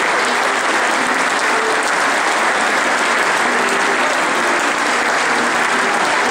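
Steady applause from a chamber full of legislators welcoming guests, with no break throughout.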